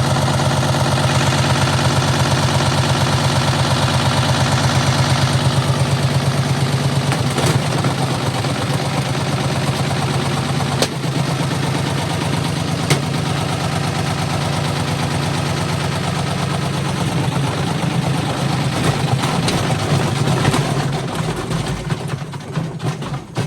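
Hotpoint FMG723 washing machine on a maximum-speed spin: motor and drum running loud with a fast, even pulsing and a low hum, and a few sharp knocks. Near the end it winds down.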